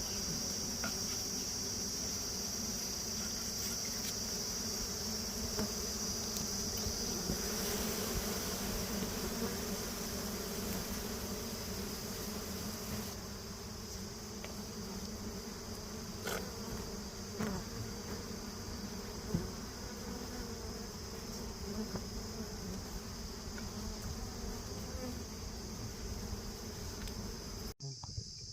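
A swarm of dwarf honeybees (Apis florea) buzzing steadily around their comb as the hive is cut, with a steady high-pitched whine over it that weakens about halfway through. The sound cuts off abruptly just before the end.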